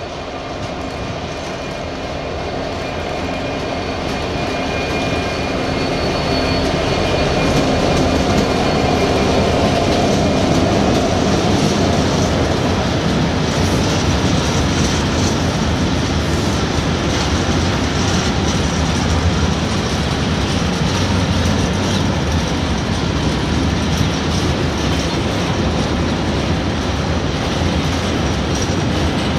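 Class 66 diesel locomotive with its EMD two-stroke V12 engine, growing louder as it approaches and passes about eight seconds in. A long rake of engineers' hopper wagons then rolls by with a steady rumble and clatter of wheels on the rails.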